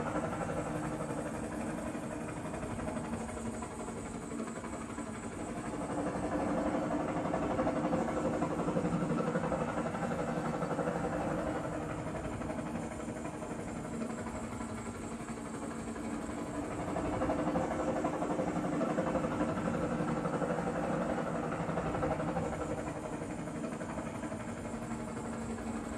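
Dolby Atmos helicopter demo played back through a Klipsch Cinema 1200 Atmos soundbar and subwoofer: a helicopter's steady rotor and engine sound moving around the room, swelling louder twice and easing off again.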